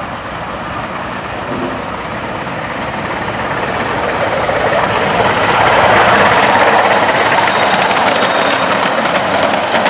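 A 7¼-inch gauge miniature steam locomotive hauling passenger cars, its steam and running noise growing steadily louder as it comes close, loudest about six seconds in. Near the end the wheels start clicking over the rail joints.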